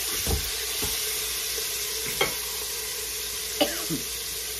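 Beef roast pieces searing in an Instant Pot's stainless steel inner pot, giving a steady sizzle, with a few light clicks of a metal fork against the meat and pot.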